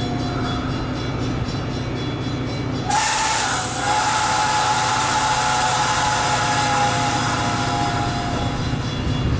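Diesel commuter train standing at the platform, its locomotive engine running with a steady low drone. About three seconds in comes a sudden rush of air, followed by a steady high whistling tone that lasts about five seconds.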